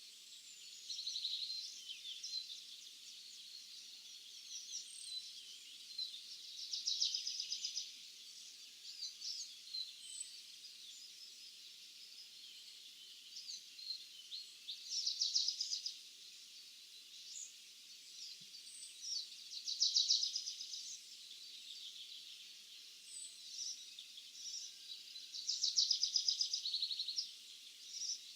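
Songbirds singing: about every five seconds a bird repeats a short, rapid trilled phrase, about a second long, and faint scattered chirps and calls fill the gaps.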